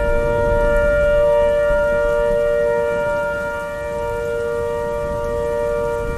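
Synthesized electronic outdoor warning siren holding a steady two-tone chord with many overtones, the lower tone swelling and fading about every second and a quarter. A low rumbling noise runs underneath, stronger in the first half.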